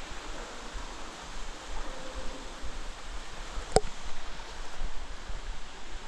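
Steady rush of fast river water, with a single sharp click about two-thirds of the way through.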